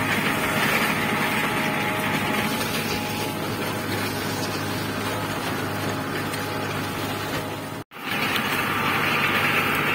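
New Holland TL95 tractor's diesel engine running steadily as it pulls a seed drill across the field, with a short break in the sound about eight seconds in.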